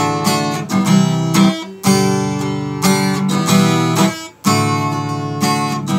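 Acoustic guitar strummed in full chords that ring between strokes, with two short breaks where the chord changes, about two seconds and four and a half seconds in.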